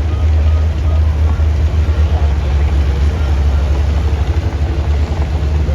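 Large vehicle engine running steadily with a low rumble.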